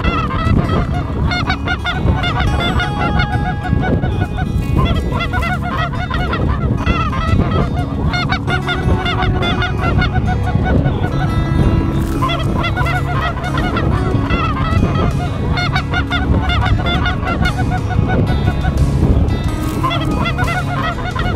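A flock of geese honking continuously, many short calls overlapping.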